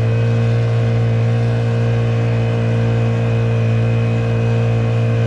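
Honda GX50 50cc four-stroke air-cooled outboard engine running steadily at high throttle, not yet wide open, with an even, unchanging pitch.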